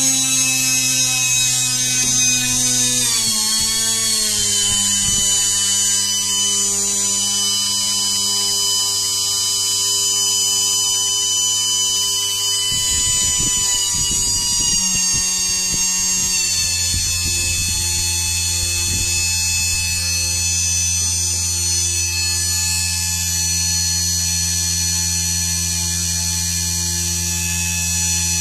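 3D-printed 12N10P brushless motor spinning with a steady electric whine. Its pitch steps down about three seconds in and again around sixteen seconds in, as its speed is lowered.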